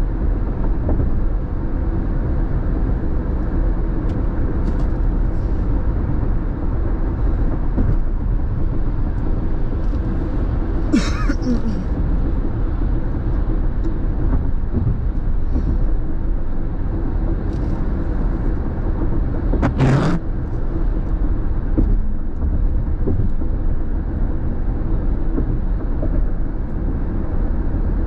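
Steady road noise heard from inside a car cruising at highway speed: a low tyre and engine rumble, with two brief louder hissing noises about a third and two-thirds of the way through.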